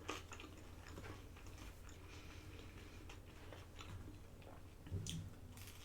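Faint chewing with small wet mouth clicks, and a slightly louder bite or clack about five seconds in.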